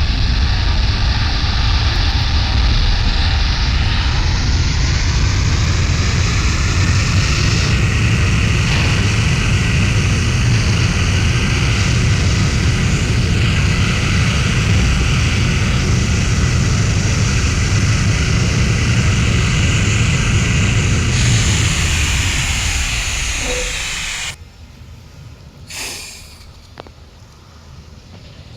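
Jet aircraft engine running loudly, a steady roar with a whine that rises in pitch about five seconds in and then holds. It fades near the end and cuts off suddenly to a much quieter background, with one brief sound shortly after.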